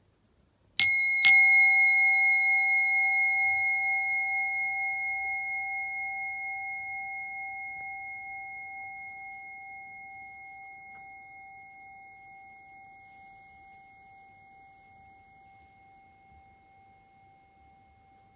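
Buddhist singing bowl struck twice about half a second apart, a little under a second in. It then rings on with a low and a higher tone, fading slowly with a gentle wavering pulse.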